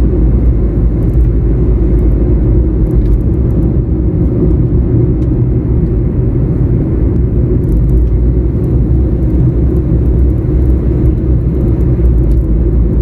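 Steady road and engine rumble inside the cabin of a small car driving along at an even pace.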